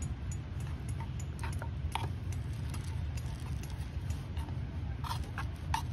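Wooden chopsticks tapping and scraping against a metal mess tin as soaked rice, canned fish and mentsuyu are stirred together, a few irregular clicks over a steady low rumble.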